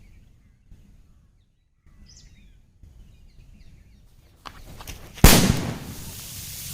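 A jute-rope firecracker bomb buried in the ground going off with a single sharp, loud bang about five seconds in, followed by a steady hiss. Faint bird chirps are heard before the blast.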